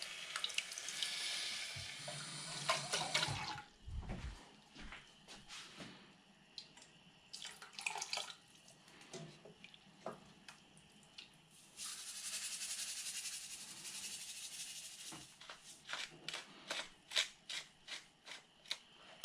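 Canned chopped tomatoes poured into a hot steel pot of curry base, sizzling and hissing, then a wooden spoon stirring and knocking against the pot, with another stretch of hissing partway through. Near the end a wooden pepper mill is twisted over the pot, a quick run of sharp clicks.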